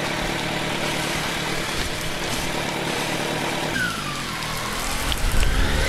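Kawasaki Z900 inline-four with an aftermarket exhaust running under a steady hiss of rain and wind. About two-thirds of the way in, the engine note dips and then climbs as the bike pulls away and accelerates.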